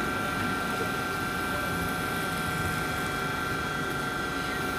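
Bombardier TRAXX electric locomotive (class EU47) standing with its equipment running: a steady whine of several high tones over an even rushing hum.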